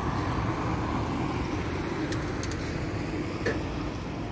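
Steady rumble of city street traffic, with a few short clicks about two seconds and three and a half seconds in.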